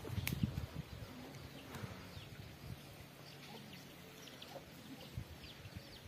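Footsteps through a dry forest floor, heaviest in the first second with a sharp snap, then softer. Faint bird chirps sound now and then in the background.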